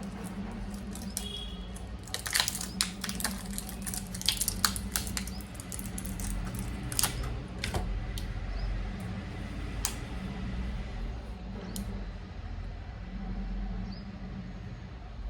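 Scattered sharp clicks and crackles of a small packet of sneezing powder being handled and opened, thickest about two to five seconds in, over a steady low hum.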